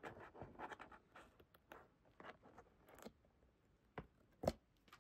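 Faint rustling and scraping of a cardboard mailing box being handled by fingers, with a few short sharp ticks in the last two seconds as the backing is worked off the box's adhesive seal strip.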